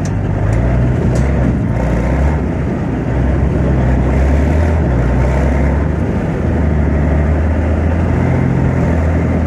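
BVP tracked infantry fighting vehicle on the move, its UTD-20 V6 diesel engine running steadily and loudly under a low drone, heard from on top of the hull.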